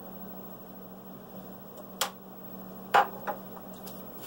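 Craps dice clicking: a sharp tap about two seconds in, a louder knock a second later followed at once by a smaller tick, then a couple of faint ticks. A steady low hum runs underneath.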